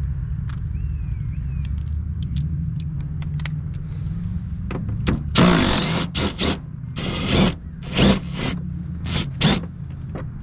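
Chevy Silverado pickup engine idling steadily. From about five seconds in come five or six short scraping bursts from the plastic inner fender liner as its fasteners are worked loose.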